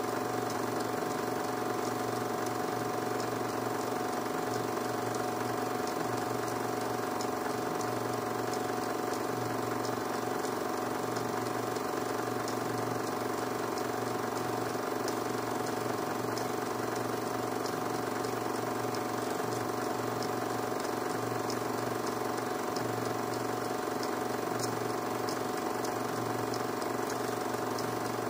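A 16 mm film projector running steadily, giving a constant machine hum with a faint ticking from its mechanism.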